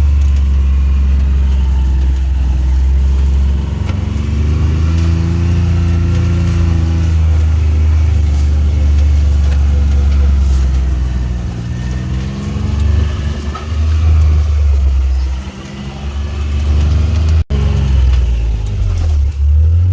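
Utility vehicle (Gator) engine running while driving over rough ground, its pitch rising and falling with the throttle. The sound cuts out for an instant near the end.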